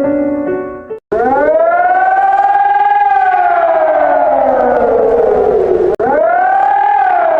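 A few held keyboard notes, then after a sudden cut about a second in, a civil defense siren rises, peaks and slowly falls over about five seconds. A second abrupt cut near the end starts another, quicker rise and fall.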